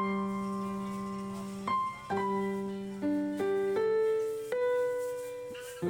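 Slow piano music: single notes and chords struck every second or so, each ringing on and slowly fading.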